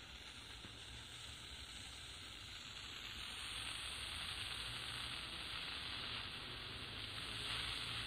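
Atlanfa portable radio's speaker giving medium-wave AM static: an even hiss with a faint low hum, slowly growing louder, with no station audible.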